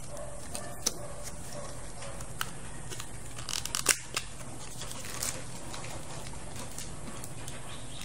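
Scattered small clicks and crackles of a clear plastic CPU clamshell being handled and opened, loudest in a brief cluster a little before halfway, over a steady background hum.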